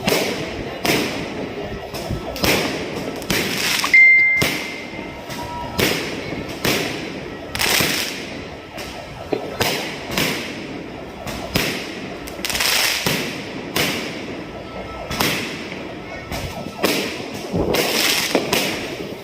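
Fireworks exploding in a continuous barrage, a sharp bang every second or so, each trailing off in echo. A short high whistle sounds about four seconds in.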